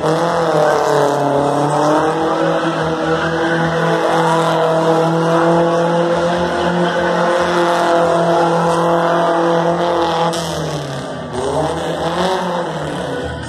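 Car engine held at high revs as the car spins donuts, with tyres screeching on the tarmac. About ten seconds in the revs drop, then rise briefly once more and fall away near the end.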